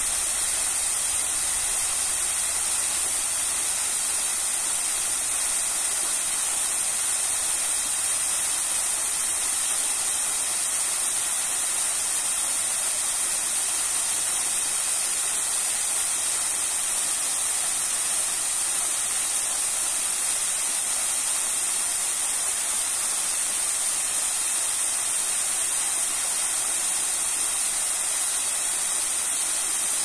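A small waterfall pouring down a stepped stone masonry wall, splashing onto the ledges and the pool below in a steady, unbroken rush that is strongest in the high range.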